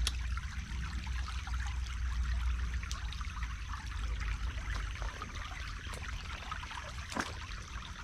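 Creek water trickling and running steadily, with a low steady rumble underneath.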